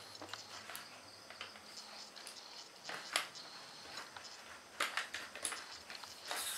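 Simpex 3600 tripod being handled: a few light clicks and taps from its metal legs and plastic fittings, scattered over several seconds, over a faint steady high hiss.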